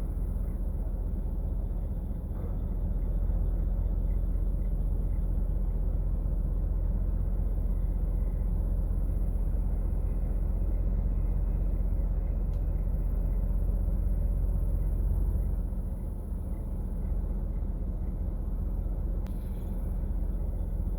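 Steady low rumble of motor vehicles, with a couple of faint clicks in the second half.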